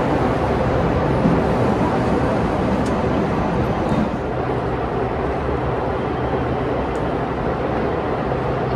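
Electric passenger train running through a rail tunnel: a loud, steady rush of wheels on rails and moving air, echoing off the concrete tunnel walls, with a few faint clicks.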